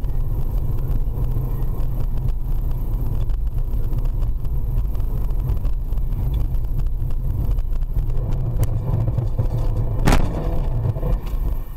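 Dashcam car interior while driving: a steady low rumble of engine and tyres, then a sudden loud bang about ten seconds in as another car slides into it in a collision.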